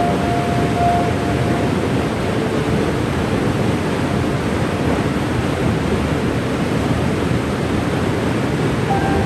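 Waterfall's steady rush of falling water. Faint held tones sound over it at the start and again near the end.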